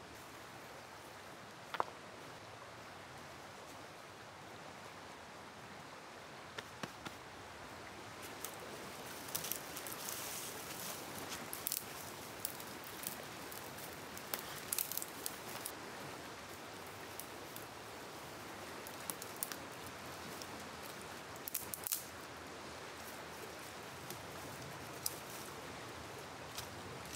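Steady rush of flowing river water, with scattered small clicks and rustles from about eight seconds in.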